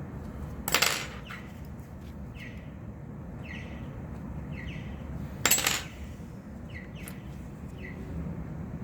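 A tool scraping leftover adhesive out of an iPhone 11's camera glass recess, in short light strokes. Two louder, sharper scrapes come about a second in and about five and a half seconds in, over a steady low hum.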